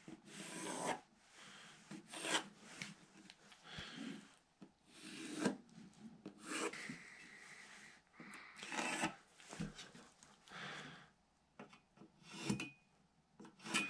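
Pencil scratching along an oak blank as an outline is traced from a template and a straightedge, in about ten short separate strokes, with a few light knocks as the pieces are shifted on the bench.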